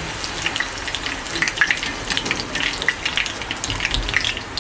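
Chital fish dumplings deep-frying in hot refined vegetable oil in an iron kadai: a steady sizzle with many small crackles and pops. The dumplings are fried light brown and are being lifted out of the oil with a wire spider strainer.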